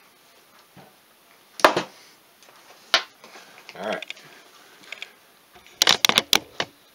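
Metal tools and parts handled on a workbench: a few separate knocks and clinks, then a quick run of clicks near the end.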